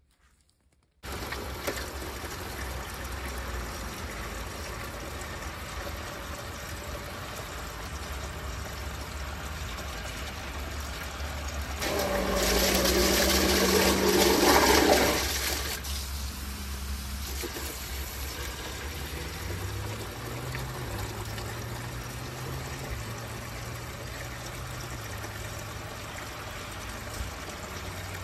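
Water rushing steadily into the reassembled Liberty Pumps Ascent I macerator pump during a flush test. It swells much louder for about three seconds near the middle, with a hum under it, and a low steady hum comes in about two thirds of the way through.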